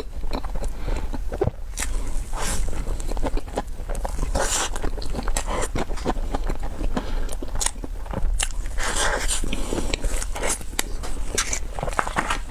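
Close-miked eating sounds of a dessert being bitten and chewed, with many quick crackly clicks throughout.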